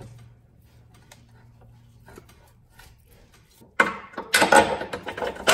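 Bolt scraping and clicking as it is pushed by hand through the subframe bracket and the end of an alloy rear lower control arm, loud and rattly for the last second and a half or so.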